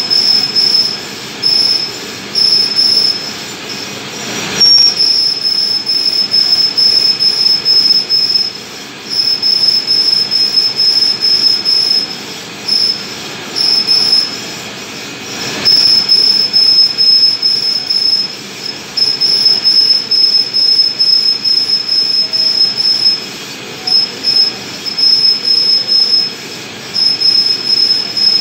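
Lathe tool cutting a stainless steel ring, giving a high-pitched squeal that cuts in and out in stretches of one to several seconds over the steady running of the machine.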